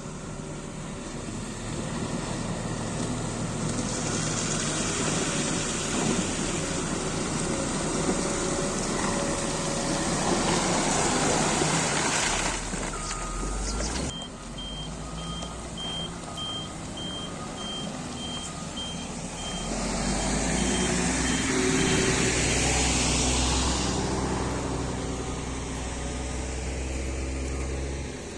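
Motor grader's diesel engine running, growing louder twice as it works. For several seconds past the middle its reversing alarm beeps about twice a second.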